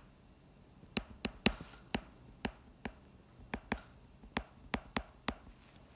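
Stylus tip tapping and clicking against a tablet screen while words are handwritten: a string of sharp, irregular taps, a few a second.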